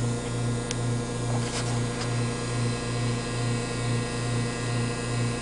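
Steady hum of the running pumps and heaters of a waste-vegetable-oil drying rig. A low drone swells and fades about twice a second, and there are a few faint clicks in the first two seconds.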